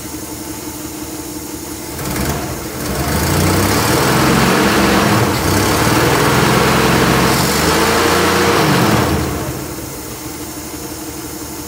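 1967 Ford Econoline's inline-six engine, its carburettor freshly rebuilt, idling, then revved up about two seconds in, held at higher revs for several seconds and let fall back to a steady idle near the end.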